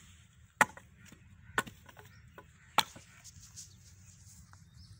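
Dry firewood sticks knocking down onto the ground as they are laid between bricks for a cooking fire: three sharp wooden knocks, about a second apart.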